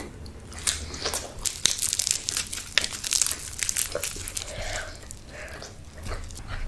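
Food packaging being crinkled and torn open: a dense run of irregular crackles, busiest in the first half and thinning out after about four seconds.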